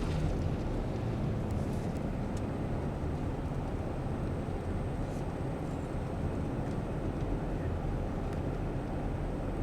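Steady road and engine noise inside the cab of a moving truck, a continuous low rumble.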